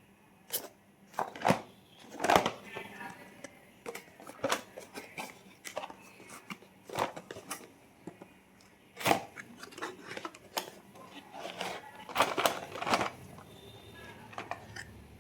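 Toy car packaging being handled and opened: scattered sharp clicks, taps and rustles of cardboard and plastic.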